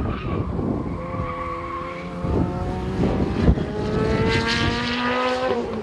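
Ferrari F430's V8 engine running hard as the car passes close by. Its pitch climbs steadily under acceleration, then drops with a gear change near the end.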